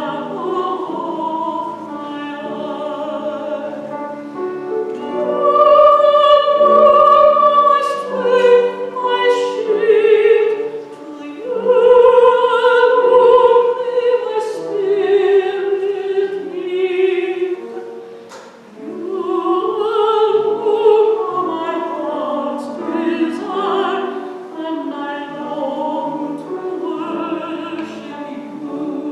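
A woman singing a solo sacred song in a classical, operatic style, with long held notes and vibrato, over instrumental accompaniment.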